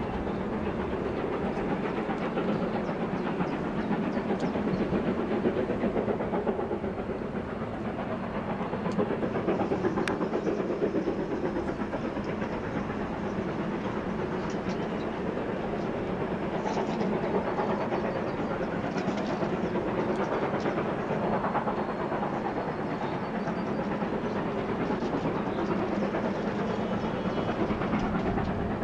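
Narrow-gauge steam train running uphill, heard from a carriage window: the wheels on the rails and the steam locomotive working, as a steady dense noise.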